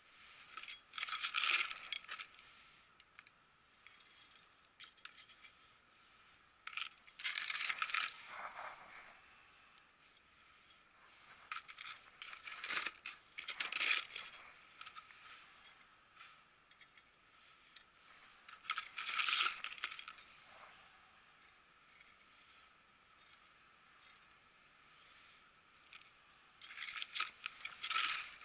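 Metal hand trowel scraping and scooping gritty potting mix out of a plastic tray, then tipping it into a pot. The short rattling scrapes come about every five seconds.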